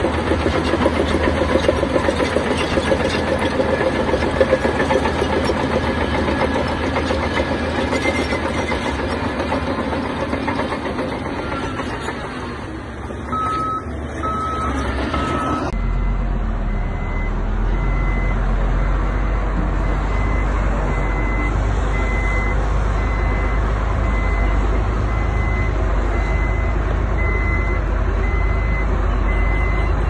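Heavy diesel construction machinery working, its engine running hard with a fast clattering rhythm. About halfway through this gives way to a steadier, deeper engine drone with a backup alarm beeping about once a second.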